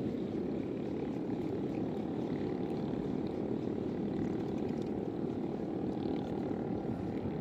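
Steady, unchanging low rushing noise with a faint steady hum on top.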